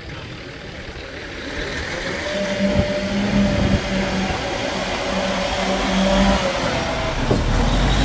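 Motor vehicle's engine running and growing louder, with a steady drone over a rumbling noise.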